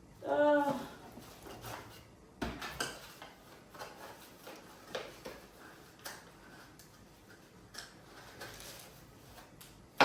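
A short hummed "mm" at the start, then scattered light clicks and taps of items being handled during unboxing.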